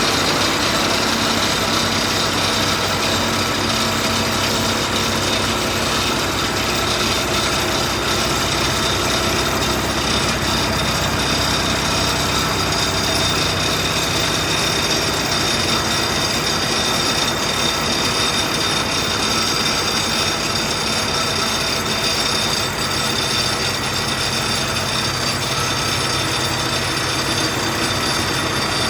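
Construction drilling machine running steadily: a continuous loud mechanical noise with several steady whining tones layered over a low rumble.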